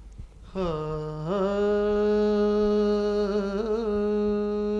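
A man's unaccompanied voice singing one long held note, starting low and stepping up in pitch about a second in, with small ornamental turns near the end: the opening of an Urdu hamd recitation.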